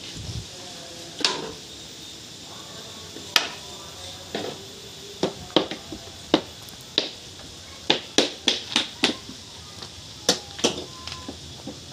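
A series of sharp, short knocks and taps at irregular intervals, about fifteen of them, coming more often in the second half.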